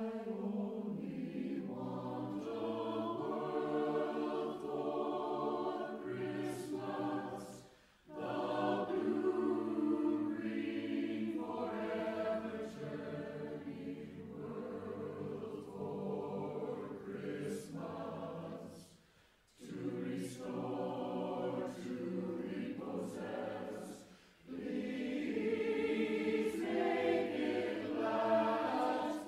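Mixed-voice a cappella choir singing in close harmony, in phrases separated by short breaths about 8, 19 and 24 seconds in.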